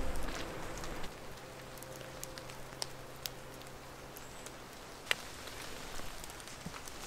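Quiet mountain-trail ambience: a low steady hiss with scattered faint ticks and pats, the sharpest tick about five seconds in.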